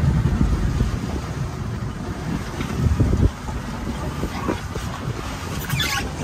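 Wind buffeting the microphone on an open speedboat on choppy water. The rumble is heavy at first and drops off sharply about three seconds in, and a few short clicks come near the end.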